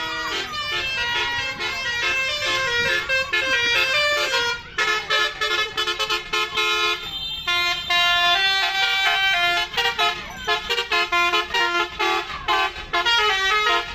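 Indonesian 'telolet' bus horn, a set of musical multi-tone horns, playing a fast run of stepped notes over and over, with short breaks between the runs.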